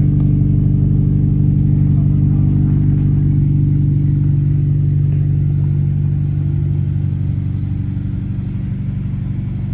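A Honda Civic Si's four-cylinder engine, fitted with a Skunk2 Alpha header, running at a steady speed with its exhaust note even throughout. It eases slightly quieter past the middle.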